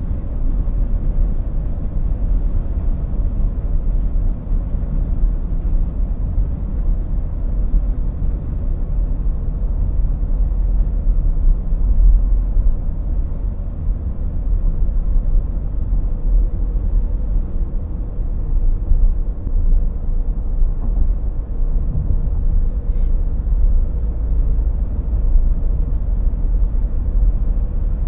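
Car cruising at highway speed, heard from inside the cabin: a steady low rumble of road and engine noise.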